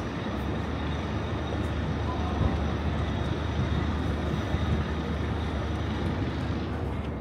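Steady low rumble of city traffic in the open air, with no single event standing out.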